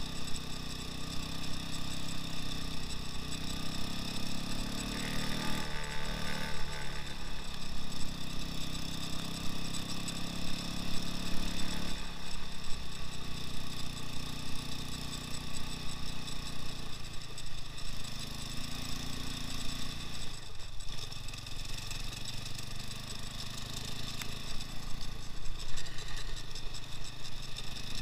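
Engine of a 2x2 all-wheel-drive off-road motorcycle running under way, its note rising and falling with the throttle and dipping briefly a few times.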